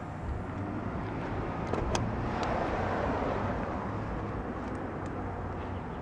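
A road vehicle passing by, its noise swelling and fading over a few seconds, with a couple of sharp clicks a little before it peaks.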